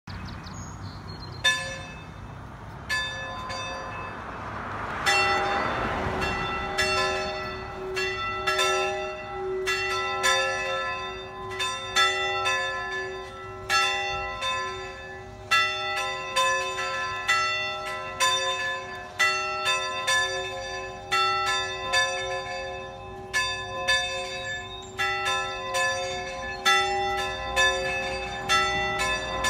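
Church tower bells being played, struck one after another at different pitches with the strikes ringing over each other and a low hum carrying on underneath. A brief rush of noise comes about five seconds in.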